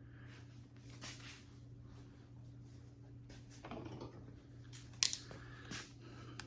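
Faint scattered clicks and scrapes of hand tools and metal parts being handled, with a sharper click about five seconds in, over a steady low hum.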